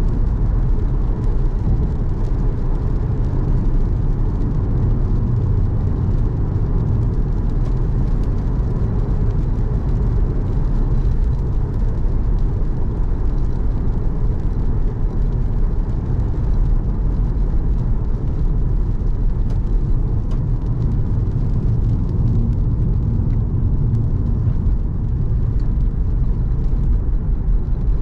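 A car driving at a steady pace: a continuous low rumble of engine and tyres on the road.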